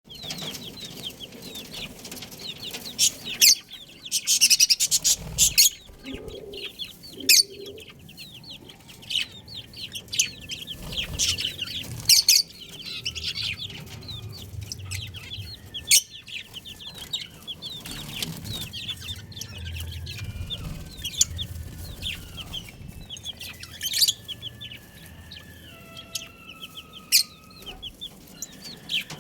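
A group of baby chicks peeping continuously in quick, high chirps. Loud sharp clicks and knocks break in now and then, with a rapid clatter of them about four seconds in.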